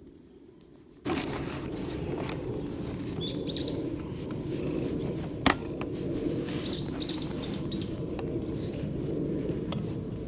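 Small birds chirping in short runs of high notes over a steady outdoor background hum that begins suddenly about a second in, with one sharp click near the middle.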